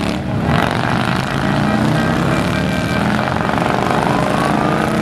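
Several motorcycles riding past in procession, their engines running with a steady rumble. One engine's pitch climbs through the second half as it accelerates by.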